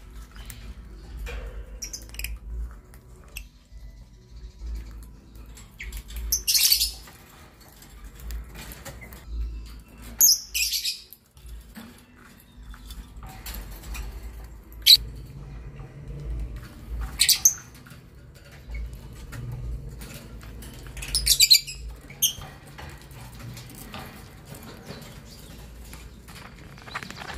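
Lovebirds giving short bursts of high-pitched chirping, four loud bursts a few seconds apart with fainter chirps between.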